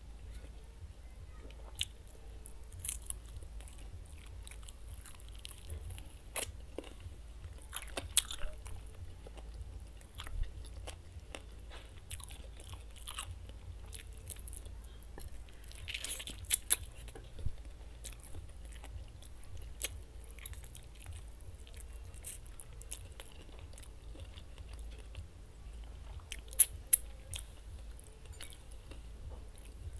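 Close-miked chewing and biting of oven-roasted chicken eaten by hand, with scattered sharp crunches, the loudest around 16 and 27 seconds in.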